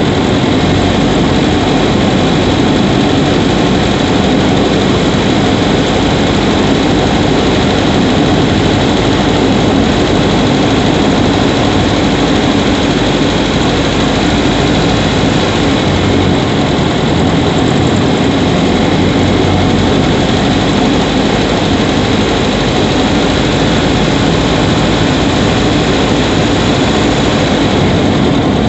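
Subaru Levorg 1.6GT-S's turbocharged 1.6-litre flat-four engine running steadily, heard close up from inside the engine bay near the intake.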